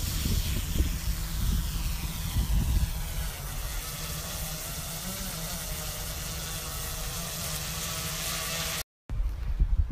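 Quadcopter drone's propellers whining as it lifts off and hovers, the whine sliding down in pitch over the first few seconds, over a gusty low rumble of wind on the microphone. The sound cuts off abruptly near the end.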